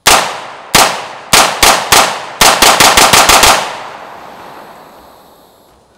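HK SP5K 9mm semi-automatic pistol fired from the hip: about a dozen loud shots, the first five spaced out over two seconds, then a quick string of about eight. The echo fades away over about two seconds after the last shot.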